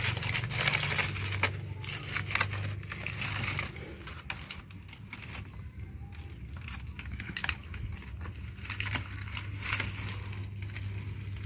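Cut-open plastic oil jug used as a drain pan, holding used engine oil, being slid out from under a car across a concrete floor: scattered plastic scrapes and knocks, busiest in the first few seconds, over a low steady hum.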